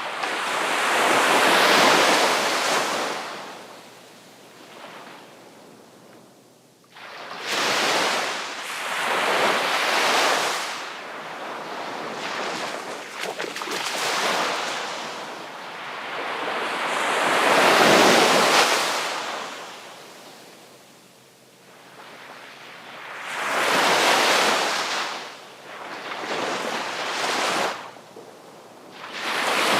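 Sea waves breaking on the shore, about eight surges one after another, each crash swelling and washing back out over a few seconds. The biggest break comes about eighteen seconds in.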